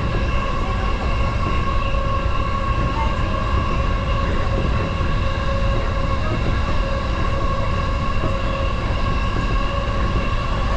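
JR Yokohama Line electric commuter train running at a steady speed, heard from inside the car: a continuous low rumble of wheels on the rails with a steady, many-toned electric whine above it.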